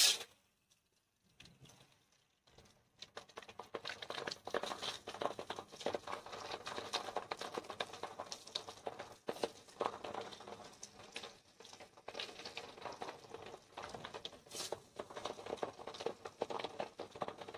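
A short loud noise at the very start, then, from about three seconds in, masala-marinated fish pieces sizzling and crackling as they fry in hot mustard oil in a kadhai.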